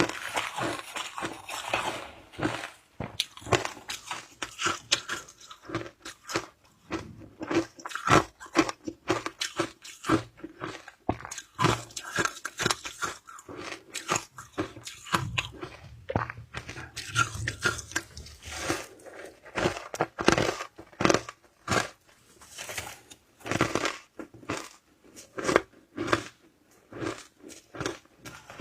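Close-up crunching and chewing of shaved ice in the mouth: a run of irregular, crisp crackles, a few bites a second.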